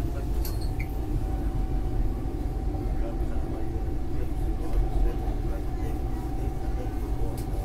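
SEPTA Market-Frankford Line train car running on the track: a steady low rumble of wheels on rail with a steady whine held over it, and a few faint clicks.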